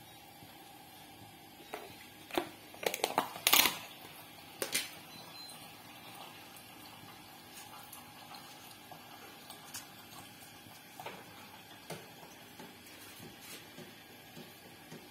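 Hands working rice-flour dough and dipping it in a tub of sesame seeds: a brief cluster of rustles and knocks a few seconds in, loudest about three and a half seconds in, then only faint scattered ticks over a low steady background.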